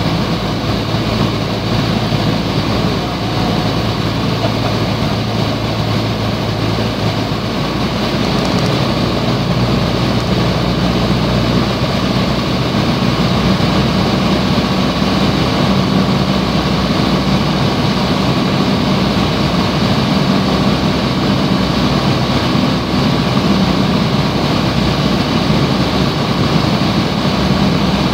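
Piper PA-28 Cherokee's piston engine and propeller running steadily in flight, heard from inside the cabin. The sound grows a little louder about a third of the way in.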